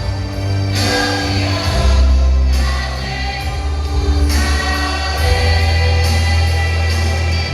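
Church vocal group singing a gospel worship song in chorus, with sustained notes over live band accompaniment carrying a strong, steady bass.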